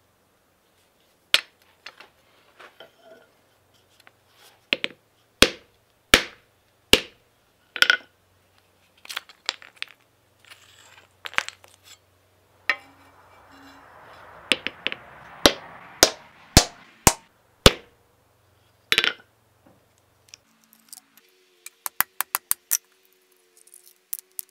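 Irregular sharp metallic knocks on a steel anvil as rotten wooden handles are broken off the tangs of an antique drawknife, some blows ringing briefly. A stretch of soft scraping comes midway and a quick run of light taps near the end.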